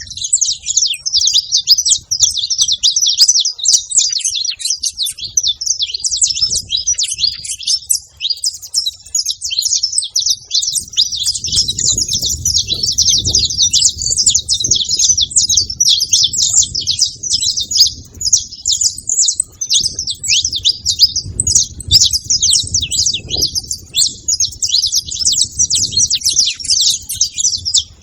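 A group of saffron finches chirping and twittering without a break, many quick high notes overlapping. A low rumble joins underneath a little before halfway.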